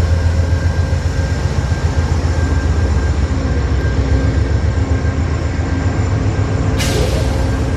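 Amtrak diesel locomotive running steadily close by: a deep, continuous engine rumble with a steady hum over it. A short, sharp hiss cuts in near the end.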